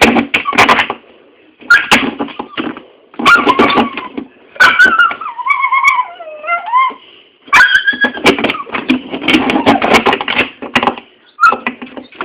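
A dog making odd vocal sounds in a string of short, rough bouts, with a longer wavering whine that falls in pitch about five seconds in.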